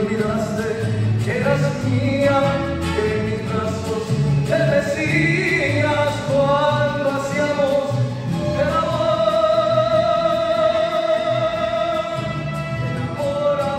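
Live mariachi music: a male voice sings through a microphone over violins, trumpets and guitars, with a steady pulsing bass. The singer holds a long note through the second half.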